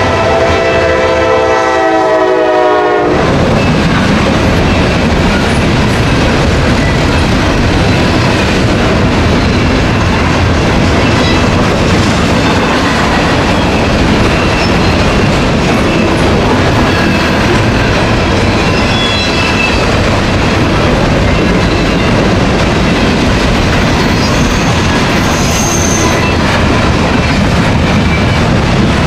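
A locomotive horn sounds a steady multi-note chord that cuts off about three seconds in. Under it and after it comes the steady rolling noise of a loaded Norfolk Southern coal train's hopper and gondola cars passing, steel wheels on rail.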